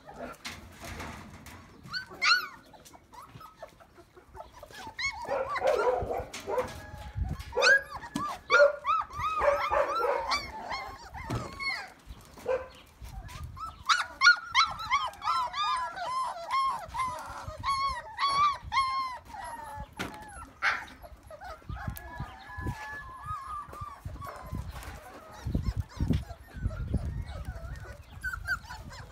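Young Belgian Malinois puppies, about three and a half weeks old, whining and yipping: many short, high-pitched cries that rise and fall in pitch, coming thickest between about five and twenty seconds in.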